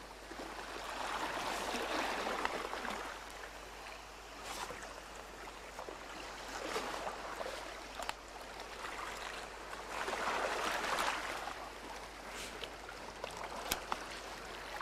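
Sea water washing and swirling around shoreline rocks, swelling twice and easing back, with a few faint clicks.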